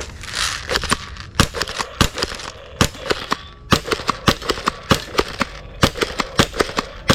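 Toy shotgun firing: a quick, irregular run of sharp cracks, about three or four a second, many with a short ringing tail.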